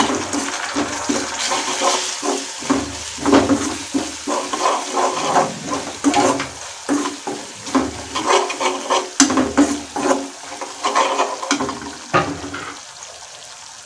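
Onion and spice masala sizzling in hot oil while a slotted metal spatula stirs it, scraping against the metal kadai in irregular strokes. The sizzle drops quieter near the end.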